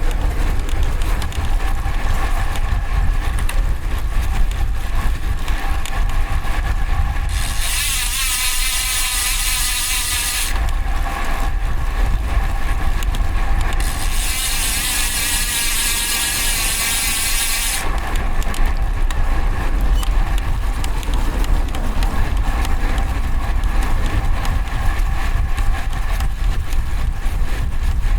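Wind rumble on a bike-mounted microphone while a road bike is ridden in traffic, with faint steady tones under it. Two spells of a bright hissing buzz, about three and four seconds long, come a quarter of the way in and around the middle.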